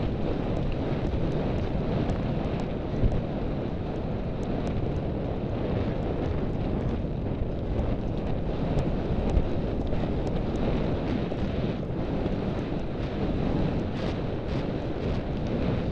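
Steady wind rumble buffeting the microphone of a camera carried by a rider on a horse moving at speed, with scattered faint ticks through it.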